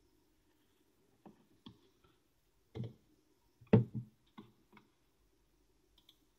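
A wet rock knocking and scraping against a plastic bowl as it is handled and set down: a handful of scattered clicks and knocks, the loudest about four seconds in.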